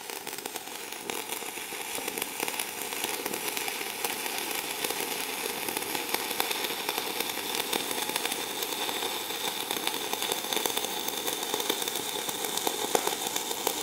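Stick-welding arc of a 2.5 mm rutile electrode (Phoenix Grün T RR12) at about 110 A, crackling steadily as a horizontal fillet weld is run with the electrode resting against the joint. It builds up a little over the first couple of seconds.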